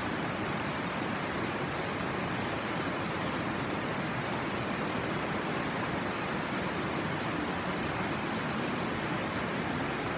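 Tanew river water rushing over low rock ledges in small rapids, a steady, even rush.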